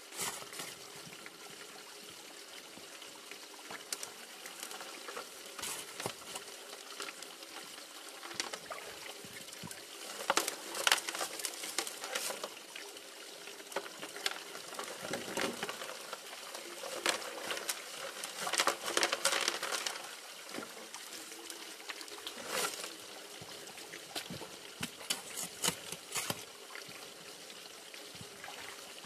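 Water running steadily through a six-inch highbanker sluice, with irregular bursts of scraping and rattling gravel as a shovel digs creek-bank material and dumps it into the hopper. The loudest clattering comes in several clusters through the middle.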